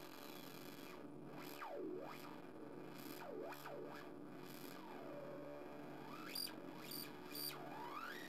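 Homemade drone synthesizer (an oscillator through a low-pass filter, built in a butterscotch tin) playing a steady buzzing drone, with several swooping glides down and back up as its knobs are turned. Near the end come three short high chirps.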